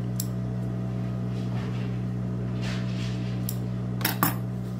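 Industrial sewing machine standing idle, its motor humming steadily while fabric and thread are handled at the presser foot. A few light clicks and a brief rustle, then two sharp clicks close together near the end.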